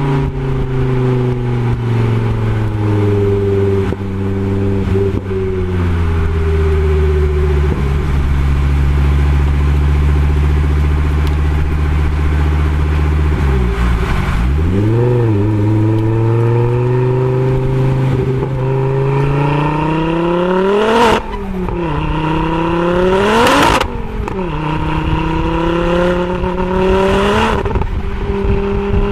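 Exhaust of a tuned Ford Focus RS Mk2's turbocharged five-cylinder engine, picked up by a microphone on the rear diffuser. It runs steadily at first, then accelerates hard from about halfway, the pitch climbing through the revs and dropping sharply at each gear change, twice near the end.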